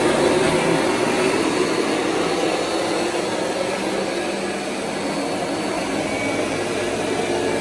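Kirby G5 upright vacuum cleaner's motor running steadily, powering the carpet shampoo system attachment.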